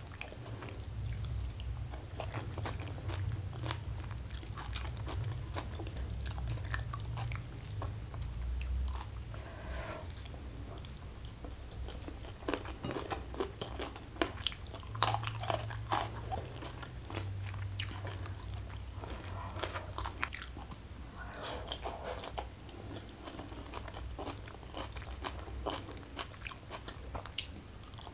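Close-miked chewing and biting of a meal eaten by hand: many small wet mouth clicks as a person chews mouthfuls of rice and side dishes.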